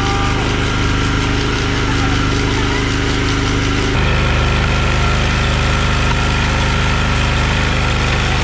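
A small engine running steadily with a low, even note; the note changes abruptly about four seconds in.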